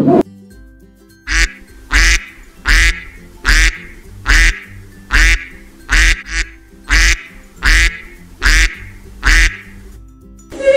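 A duck quacking in a steady series, about a dozen loud, even quacks roughly one every three-quarters of a second.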